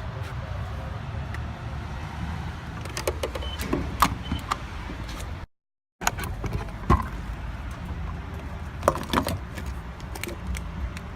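Car cabin noise while driving: a steady low rumble of engine and road, with scattered clicks and small knocks inside the car, broken by a moment of dead silence about halfway through.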